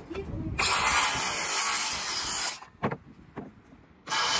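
Power saw cutting through lumber: one cut of about two seconds that stops abruptly, a sharp knock shortly after, and a second cut starting near the end.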